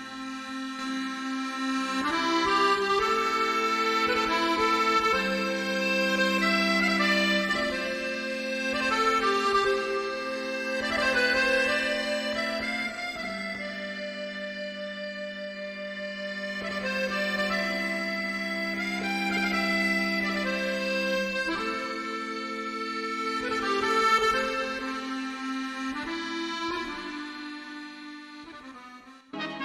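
Free-reed instrument music, accordion-like, playing held chords and melody over a sustained low note, with no percussion.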